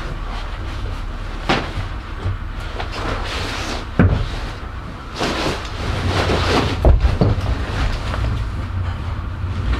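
Rustling and swishing of outdoor pants being pulled on and adjusted, with a few sharp knocks, over a steady low hum.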